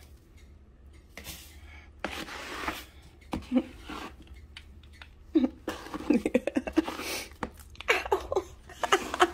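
Cat litter rustling and scraping as a plastic slotted scoop digs and sifts through a litter box. From about the middle on, short voice-like sounds come in over it.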